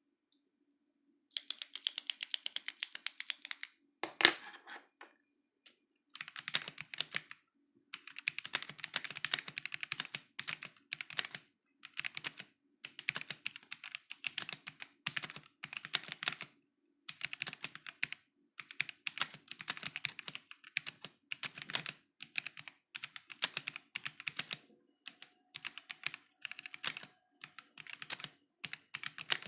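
Typing on a K66 mechanical keyboard with stock Gateron Black linear switches: runs of fast keystrokes in bursts with short pauses between them. It opens with a quick, even roll of keys, and one louder, deeper clack comes about four seconds in.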